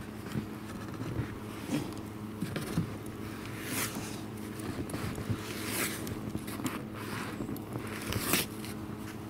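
Footsteps plowing and crunching through deep, powdery snow, with clothing swishing close to the microphone: three louder swishes about two seconds apart, over a steady low hum.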